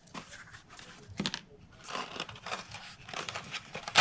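Cardstock paper and ribbon being handled, a ribbon threaded through punched holes in a paper bag: irregular soft rustles and scrapes, the sharpest right at the end.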